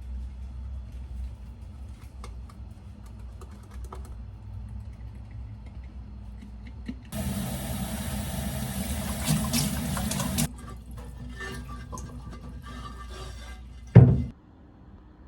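Light clicks and handling clatter over a low hum, broken by about three seconds of loud rushing, hissing noise, then a single sharp thump near the end.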